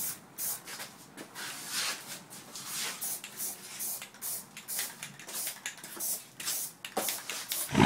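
Aerosol can of red paint spraying in many short, irregular hissing bursts, light coats going onto brake drums and calipers.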